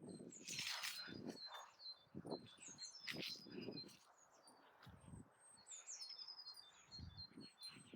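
Small songbirds chirping and singing repeated high falling trills, with a few short rustles, the loudest near the start and about three seconds in.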